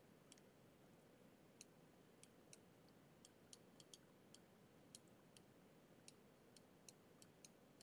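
Faint, irregular clicks of a stylus tapping on a tablet screen while handwriting, a couple of dozen over the stretch, against near silence.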